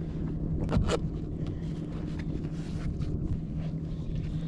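Scrapes and knocks as a person shifts about on a plastic Ocean Kayak Prowler 13 sit-on-top kayak, with two louder strokes a little under a second in and lighter clicks after. Wind on the microphone and a steady low hum lie underneath.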